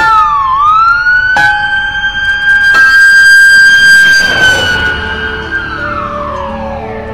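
Emergency siren wailing. It dips, then rises to a steady high tone, holds for about five seconds, and falls away over the last couple of seconds.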